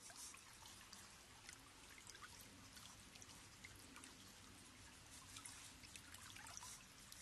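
Faint, steady trickle of running water, with scattered small ticks and clicks.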